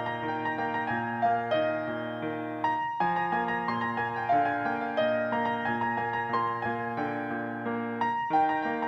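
Background music: a gentle piano melody played note by note over sustained chords.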